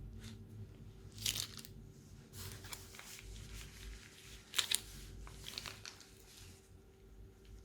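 Slime being worked out of plastic piping bags: crinkling, crackling plastic and slime with irregular clicks, loudest just over a second in and again past the middle.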